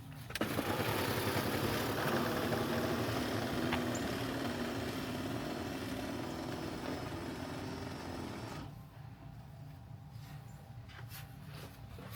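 An engine running with a loud rushing noise that cuts in just after the start and drops away about nine seconds in, leaving a lower steady hum.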